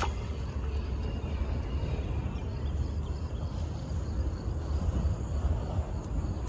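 Steady low rumbling outdoor noise with a faint hiss above it and no clear single source.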